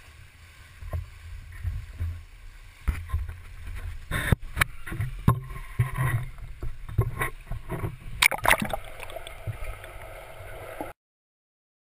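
Muffled pool water sloshing and gurgling around a waterproof camera, with sharp knocks and splashes; the loudest clusters come about four and eight seconds in. The sound cuts off abruptly near the end.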